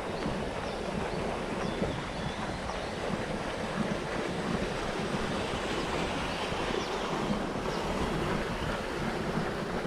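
Steady rushing noise of water, with wind buffeting the action camera's microphone.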